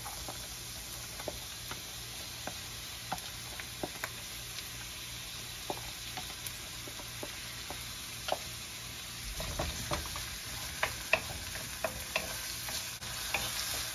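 Diced onion and garlic sizzling in hot oil in a frying pan, with scattered light taps of a wooden spatula scraping onion from a plastic container. From about nine seconds in, the spatula stirs the onions in the pan, with busier scraping and knocking.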